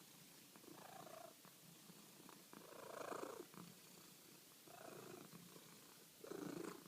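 A cat purring softly, in four slow swells that come and go with its breathing.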